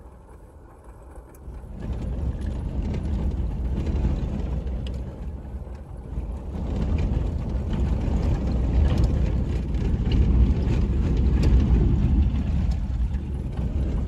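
Car rolling along a cobblestone street, heard from inside the cabin: a steady low rumble of tyres on the stones with small rattles and ticks. The rumble grows louder about two seconds in.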